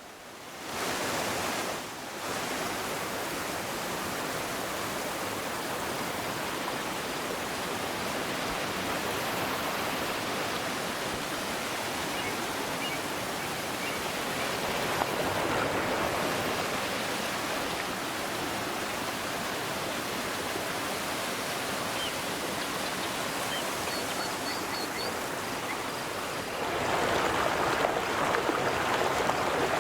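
River water flowing steadily, an even rushing wash that swells a little midway and grows louder near the end.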